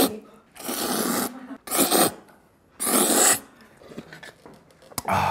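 Noodles being slurped in hard, loud sucking draws: three long slurps about a second apart, then quieter small sips.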